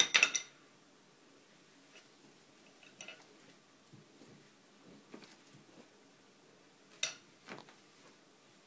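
Rabbit digging at and shoving its woven basket bed across a tile floor, which the owner reads as the rabbit getting mad: short bursts of rustling and scraping, the loudest right at the start and another sharp one about seven seconds in.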